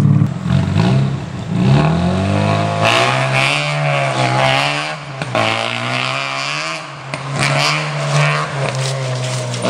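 Mazda RX-7 rally car's rotary engine revving hard on a dirt course. It rises through the gears in quick upward sweeps in the first couple of seconds, then the note rises and falls as the car is driven around the track.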